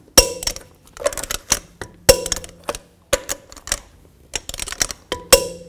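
Torque wrench tightening wheel lug nuts to 130 foot-pounds: a string of sharp, irregular metallic clicks, the loudest just after the start, about two and three seconds in, and near the end.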